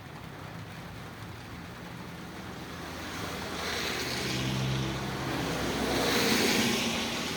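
Steady rain, then a vehicle passing on a wet road: a swell of tyre hiss with a low engine hum that builds in the second half, peaks and fades near the end.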